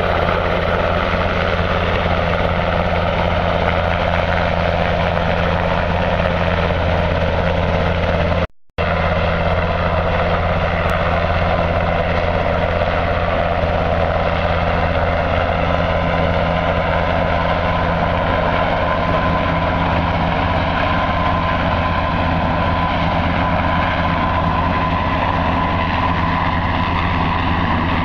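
Irish Coast Guard Sikorsky S-92 search-and-rescue helicopter hovering close by: a loud, steady drone of rotors and turbines, with a high whine growing clearer in the second half. The sound cuts out briefly about a third of the way in.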